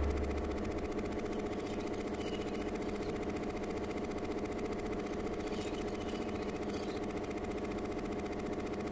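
A steady, even drone of many held tones with a fast, fine flutter running through it, mechanical in character, like a motor running at an even speed.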